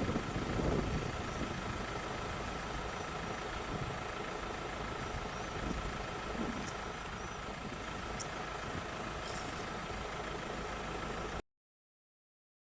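Steady engine-like rumble with hiss, a few faint high chirps over it; the sound cuts off abruptly into dead silence about a second before the end.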